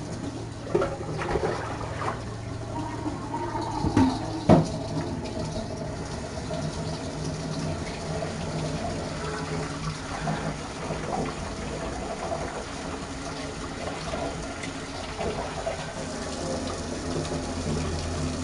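Water running steadily from a sink faucet as a kitten is rinsed under it, with two sharp knocks about four seconds in.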